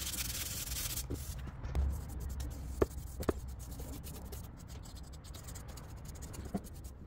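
Sandpaper rubbing back and forth on a wooden frame, stopping about a second in. It is followed by faint scratching and a few light taps as a bristle brush works clear coat onto the bare wood.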